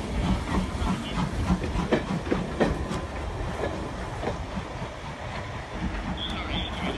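Train of passenger coaches rolling slowly past behind a steam locomotive, with the wheels clicking over rail joints and steam hissing that grows fainter as the train draws away.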